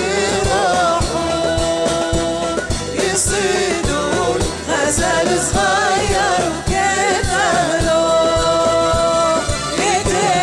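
A woman singing a traditional Jordanian folk song with ornamented, wavering lines and twice holding a long note, backed by a live Arabic ensemble whose percussion keeps a steady beat.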